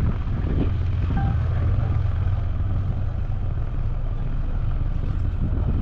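Engines of a Makruzz high-speed catamaran ferry running with a low, steady drone as the ferry comes in to the jetty.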